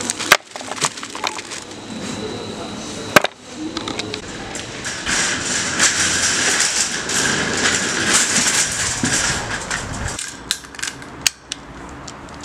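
Supermarket handling sounds: small glass jars knocking together at the start, then a wire shopping cart rattling steadily for several seconds as it is pushed along. Near the end come a few sharp metal clicks as the cart is handled in the row of parked carts.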